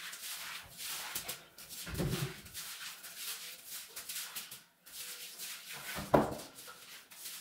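A bristle broom sweeping across ceramic floor tiles in quick repeated scratchy strokes. A dull knock comes about two seconds in and a louder one about six seconds in.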